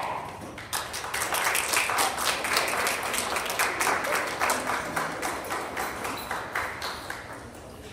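Applause from a group of people: many hands clapping, starting about a second in and dying away near the end.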